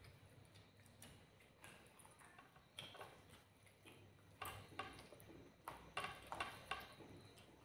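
Quiet wet eating sounds: chewing with small mouth clicks, and fingers pulling meat off a whole cooked chicken. A denser run of sharper clicks comes in the second half.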